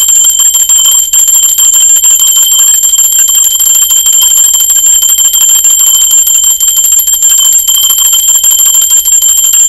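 Small brass hand bell shaken rapidly and without pause, its clapper striking many times a second so it rings on in one steady, high, bright tone.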